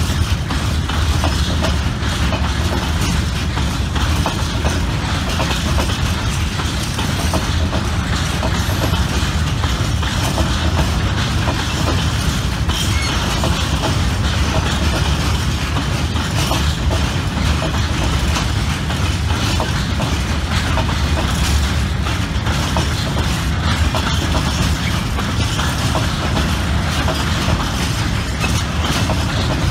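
Freight train of Fas-type open goods wagons rolling past: a steady rumble of the wagons with a continuous clatter of wheels on the rails.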